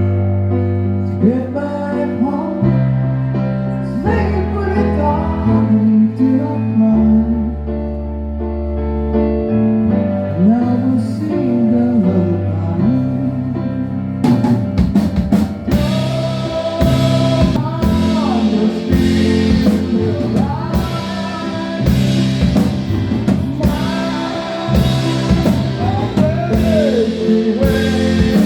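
Music: a song with a bass line, keyboard chords and a gliding melody line. A drum kit comes in about halfway through and keeps a steady beat.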